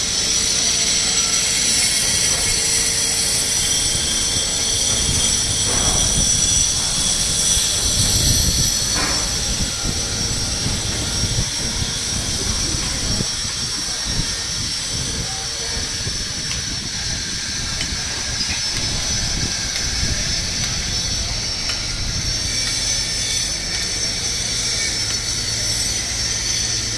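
Steady outdoor din of distant machinery and traffic: a continuous low rumble with a constant high hiss over it.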